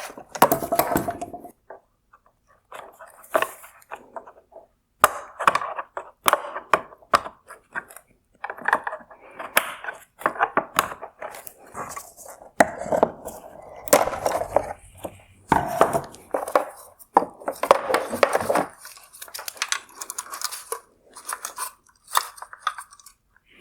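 Hard plastic headlight parts being handled and pried apart: irregular clicks, knocks and scraping as mounting clips are popped loose.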